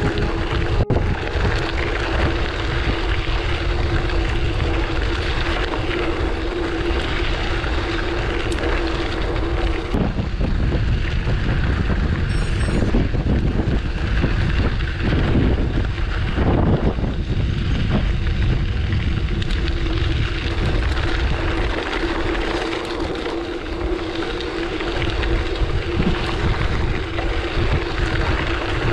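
Wind buffeting the microphone of a camera on a moving bicycle, a loud steady rumble mixed with rolling noise, with a steady hum through much of it that fades for a while in the middle.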